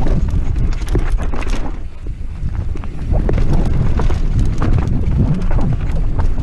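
Downhill mountain bike descending dirt singletrack, heard from a helmet-mounted camera: a steady rumble of wind on the microphone and tyres on dirt, with frequent rattling knocks from the bike over roots and rocks, easing briefly about two seconds in.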